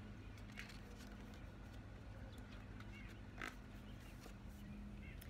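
Quiet background with a steady low hum, and a few faint rustles of a picture book's pages being turned, the clearest about three and a half seconds in.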